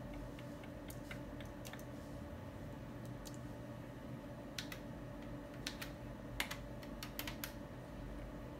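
Keys and buttons on a Mindray ultrasound machine's console clicking in irregular taps as a scan is measured and saved, the taps bunching together in the second half, over a steady low hum.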